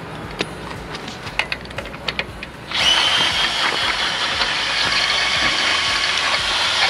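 Cordless drill unscrewing a Ground Dog screw-in ground anchor peg out of the soil in reverse. A few light clicks and knocks come first, then about three seconds in the drill starts and runs steadily with a high whine.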